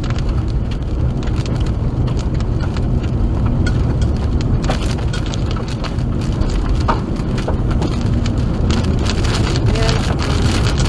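Rain pelting a moving car, heard from inside the cabin: a dense patter of sharp drop hits over a steady low rumble of road and wind noise.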